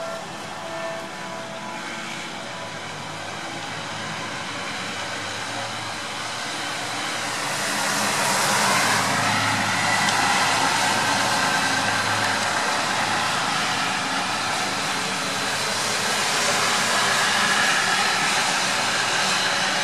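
A steady hiss of rain mixed with distant traffic. It grows louder about eight seconds in and swells again near the end.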